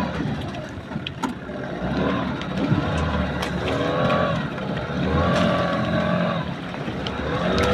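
Yamaha 15 hp outboard motor running in reverse gear, its revs rising and falling a few times, with the pitch climbing again near the end. The engine sounds in normal running condition.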